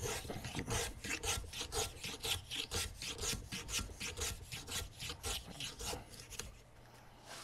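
Hand file strokes on a walnut gunstock-style grip blank, rough-shaping it down to thickness: a quick, even back-and-forth scraping at about four strokes a second, stopping shortly before the end.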